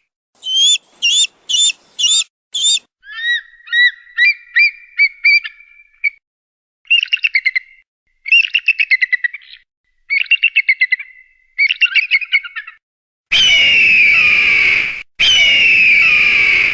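Eagle calls. About five sharp, high, falling whistled notes, then a quick series of short notes, then bursts of rapid chattering calls. Two long, loud screams come near the end.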